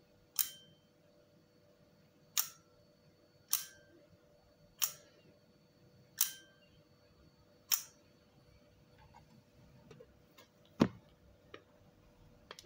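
Bencini Relex's simple spring shutter (1/50 s) being fired six times, each a sharp metallic click with a brief ring, a second or so apart. Then comes one louder, deeper knock near the end as the camera's die-cast aluminium back is closed.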